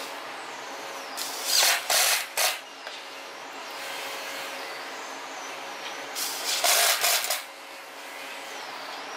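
Cordless drill-driver driving screws through a steel hinge into a wooden frame in short bursts: a few quick runs about a second and a half in, then a longer run of bursts around six to seven seconds, over a steady hiss.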